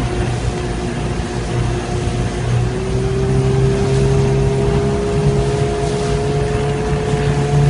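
Motorboat engine running steadily, with a constant hum whose pitch lifts slightly about two and a half seconds in, over a rush of water and wind.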